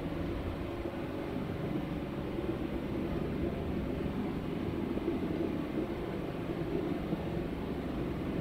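Steady low rumbling noise with a faint hum, unchanging throughout.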